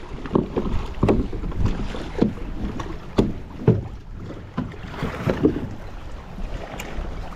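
A run of irregular knocks and clunks against a plastic fishing kayak's hull, about a dozen in all, as a paddle and gear are handled aboard, over wind and water.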